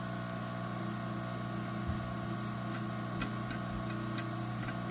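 Hot air rework station running steadily while it warms up: a constant hum and hiss from its blower, with a few faint light clicks.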